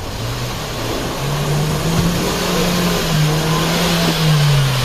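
Off-road vehicle engine revving under throttle, its pitch climbing about a second in, held high, then dropping away near the end.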